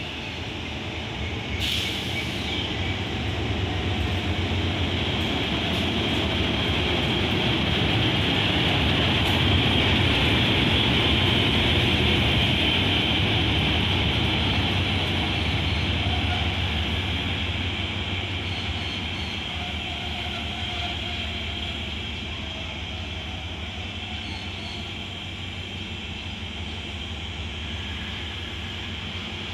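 Hitachi HID diesel-electric locomotive running light past, its engine drone and wheel-on-rail noise growing louder as it approaches, loudest about ten to twelve seconds in, then fading as it moves away. A single sharp click comes about two seconds in.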